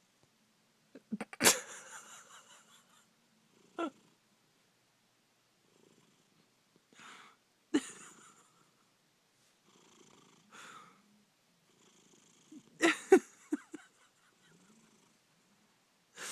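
Domestic cat snoring with a purr-like rasp, which the uploader puts down to its position. About six separate breaths come at uneven intervals of two to three seconds; the loudest is about a second and a half in, with another strong one near the end.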